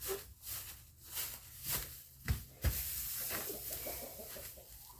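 Rustling and handling noises of hay being spread in a chicken coop, with two dull thumps a little past the middle and faint clucking from chickens.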